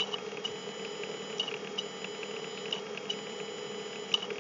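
Steady electrical hum and hiss of the recording setup, with scattered small clicks at irregular intervals.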